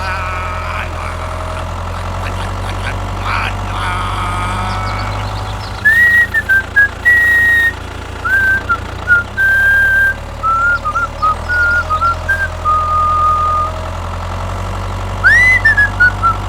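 A whistled tune of clear single notes that slide and step between pitches, starting about six seconds in, over a steady low machine hum.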